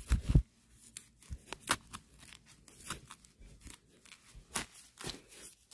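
Gloved hand scraping and pushing loose soil and dry leaf litter at the base of a young bamboo shoot, clearing it to dig the shoot out: a string of short, irregular crunches and scrapes, with a dull thump right at the start.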